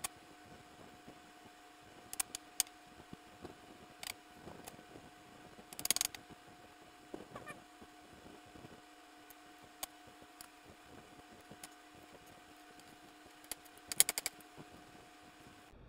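Scattered metallic clicks and clinks from tools and steel transaxle parts being handled, with a few louder clicks close together about six seconds in and the loudest cluster near the end. A faint steady hum runs underneath.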